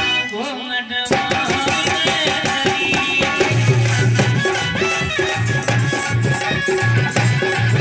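Instrumental interlude of a folk devotional song. Hand drums play a steady beat with rattling, jingling percussion and a melody line over it, the full band coming in about a second in.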